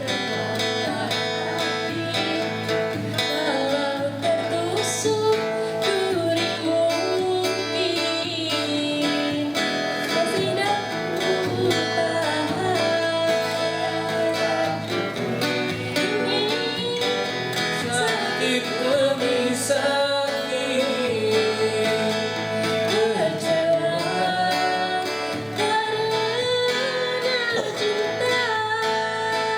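Music led by guitar, with a melody line that bends and wavers over steady accompaniment.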